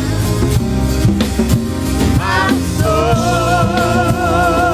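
Live worship band music with a steady drum beat, bass and keys. About two seconds in, a singer slides up and holds a long note with vibrato.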